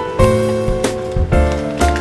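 Light, cute instrumental background music with a steady beat and bright melodic notes.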